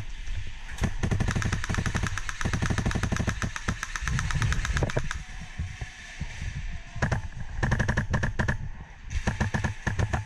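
Airsoft rifle firing rapid full-auto bursts. One long burst of about four seconds comes first, then two shorter bursts near the end.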